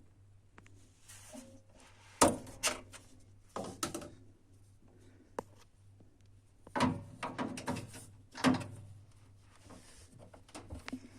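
Handling noise: sharp knocks and clatters in several short clusters, the loudest about two seconds in and again near the end, over a steady low hum.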